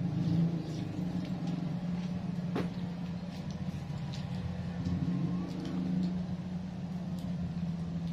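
A steady low mechanical hum, with a few light clicks and one sharper click about two and a half seconds in.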